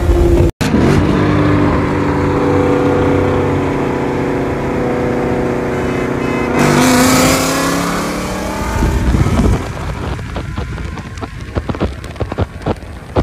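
Racing engines at wide-open throttle in a highway roll race, heard from a pacing car. One is a Mustang's gen 2 Coyote 5.0 V8 with a catless exhaust. For the first six seconds there is a steady run of engine tones, then a louder, hissier stretch about seven seconds in. Over the last few seconds wind rushes and crackles on the microphone.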